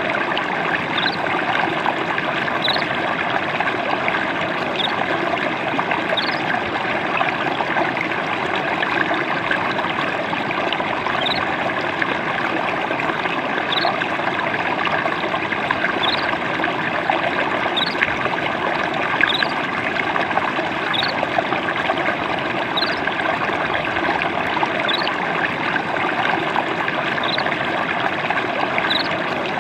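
Water trickling and babbling steadily over stones in a small stream. A short high chirp repeats about every two seconds over it.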